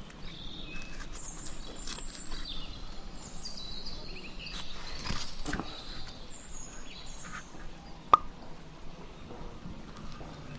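Small birds chirping in short high calls around the palm crown, over rustling and light knocks from handling among the coconut fronds, with one sharp click about eight seconds in.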